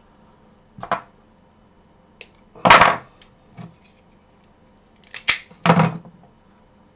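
Short bursts of handling noise as wires and small tools are moved about over a computer motherboard on a work mat. There is a brief rustle about a second in, a longer, louder scrape near three seconds, and then a sharp click with another rustle near the end.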